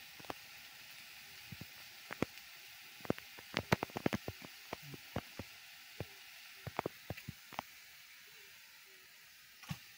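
A metal utensil clicking and scraping against a wok as greens are stir-fried over a wood fire, with a quiet steady sizzle underneath. The clinks come in quick irregular runs, busiest a few seconds in, and die away in the last couple of seconds.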